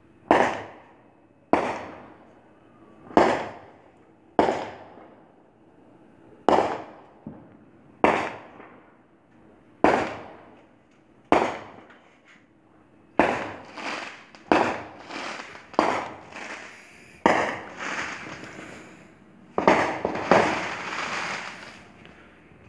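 A series of sharp bangs, each dying away over about a second. They come about one every one and a half seconds at first, then faster and overlapping in the second half.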